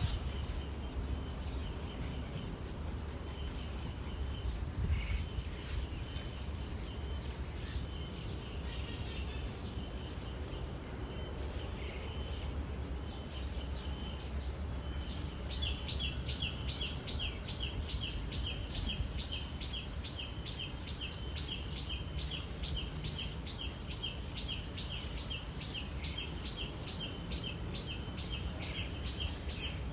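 Cicadas droning in a steady, high-pitched hiss. About halfway through, a rapid series of short chirps starts up, about three or four a second, over a few scattered chirps earlier.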